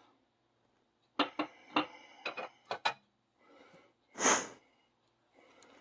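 A utensil clicking and scraping against a plate in a quick run of sharp taps while butter and olive oil are spread together, followed about four seconds in by one loud sniff.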